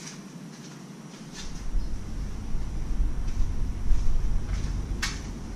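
Low, gusty rumble of wind buffeting the microphone for a few seconds, starting about a second and a half in, with a single sharp click near the end.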